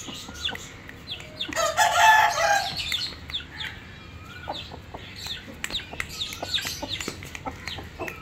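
Rooster giving one loud call about two seconds in, followed by many short, high chirps and clucks.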